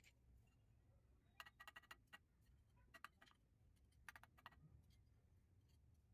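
Faint, quick taps of a trowel's wooden handle on ceramic tile pieces, bedding them into fresh mortar, in three short bursts of clicks.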